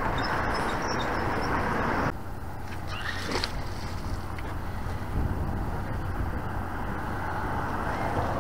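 Road traffic going by as a steady rush that cuts off abruptly about two seconds in, leaving a quieter low outdoor rumble.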